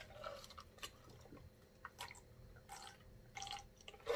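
Gulping and swallowing as a man drinks from a large glass mug: a few short, quiet wet swallows spaced through the sip.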